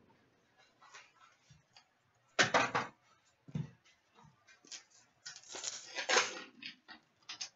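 Trading cards being handled: a few short rustles and light taps as cards are flicked through and set down on piles on a glass counter, the loudest about a third of the way in and a longer rustle past the middle.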